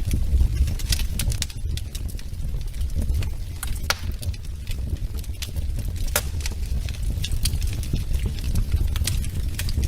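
Wood fire burning in a fireplace: a steady low rumble of flames with irregular sharp crackles and pops, several a second.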